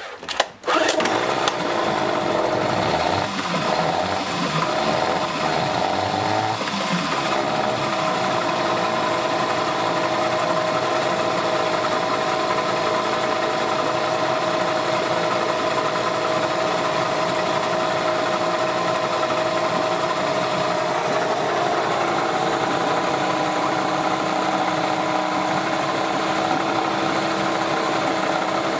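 Small Yamaha two-stroke outboard motor pull-started with some choke on. It catches about half a second in, runs a little unevenly for the first several seconds, then settles into a steady run.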